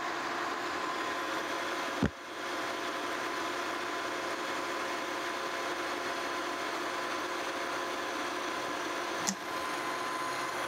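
Metal lathe running steadily with a steady whine, turning the journal of a small cane mill roller on a light pass to take out a groove. A sharp click about two seconds in and a smaller one near the end.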